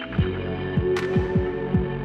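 Background electronic music: sustained synth chords over a deep drum beat whose strokes each drop in pitch, with a sharp crash-like hit about a second in.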